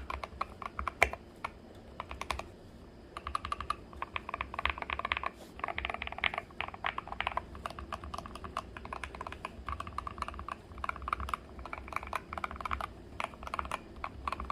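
Typing on an Akko 3061 mechanical keyboard with linear switches. A few scattered keystrokes give way, about three seconds in, to quick runs of clacking keys broken by short pauses.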